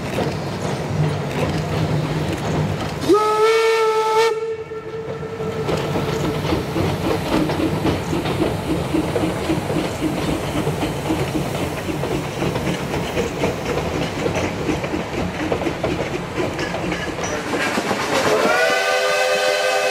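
Steam whistle on the 1875 wood-burning 4-4-0 Eureka and Palisade No. 4 gives one short blast, rising into pitch about three seconds in. Then comes the steady rhythmic clatter of the locomotive and its coaches rolling across a bridge. Near the end a steam whistle with a chord of several tones starts and holds.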